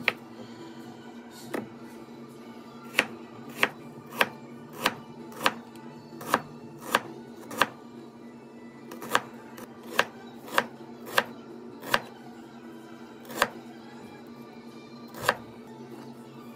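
Chef's knife slicing an onion on a wooden cutting board, the blade knocking sharply on the board with each cut. The knocks come about one every half to two-thirds of a second, in a run of eight, a short pause, a run of five, then two more spaced out toward the end.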